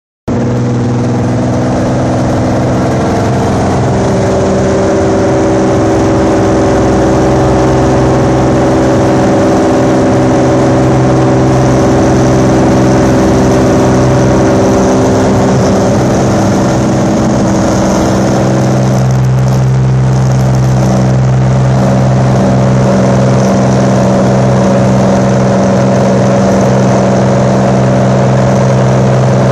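Cirrus SR22's six-cylinder piston engine and propeller at full takeoff power, heard from inside the cabin: a loud, steady drone with a stack of even tones, its character shifting a little about two-thirds of the way through.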